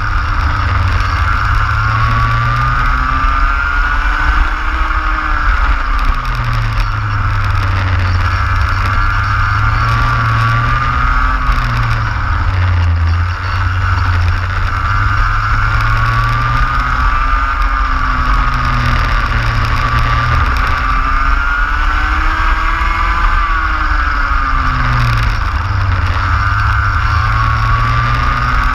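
Racing kart engine heard onboard at racing speed, its pitch climbing as it revs out along the straights and dropping off into the corners, again and again.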